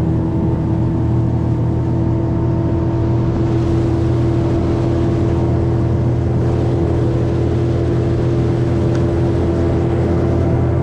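Boat motor running steadily at a constant speed, a fixed droning pitch.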